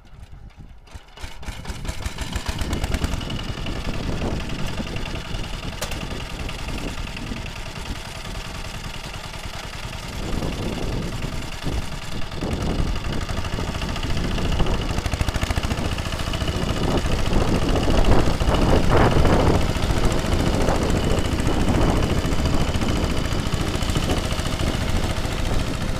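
ZUBR 10-horsepower walk-behind tractor engine running under load as its rotary tiller churns through soil. It comes in loud about a second in, then rises and falls unevenly with the load and grows louder partway through.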